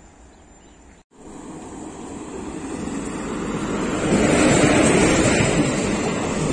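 Indian Railways electric-locomotive-hauled express train running through a station at speed: after about a second of faint background and a short break, the rumble of wheels on rail builds over about three seconds and is loudest as the coaches rush past near the end.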